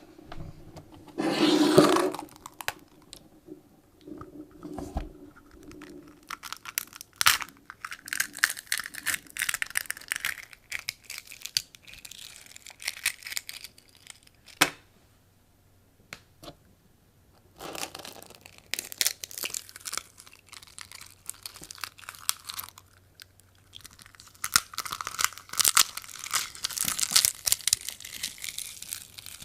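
Eggshells cracking and crunching: stretches of dense fine crackling several seconds long with short quiet gaps between them, and one louder sudden burst about two seconds in.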